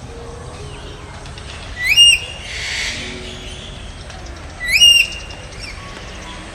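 A bird calling twice, about three seconds apart. Each call is a short, loud, high note that sweeps sharply upward and then holds briefly. A steady background hiss runs under it.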